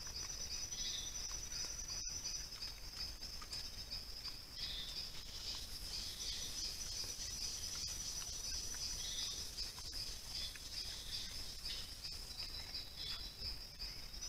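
Steady chorus of night insects trilling in a high, fast-pulsing band, with a few faint ticks under it. The sound cuts out completely for an instant about two seconds in.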